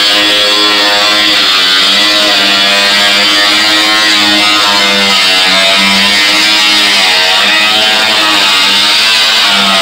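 Background music led by electric guitar, at a steady loud level.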